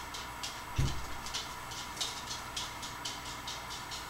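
Soft, irregular crackling and rustling of hair as fingers cross and gather strands into a French braid, with one dull low bump about a second in.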